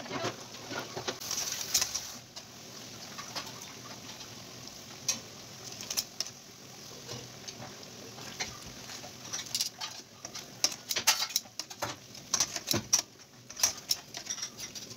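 Zucchini koftas deep-frying in hot oil: a steady sizzle full of crackles and pops, with sharper clicks in the last few seconds as metal tongs lift the pieces from the pan.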